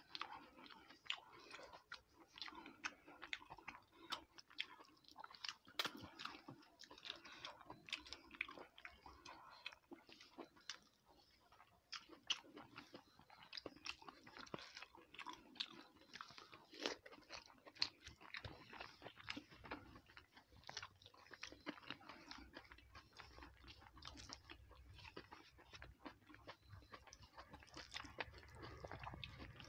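A person chewing mouthfuls of rice and curry, picked up close on a lapel microphone: faint, irregular wet clicks and soft crunches.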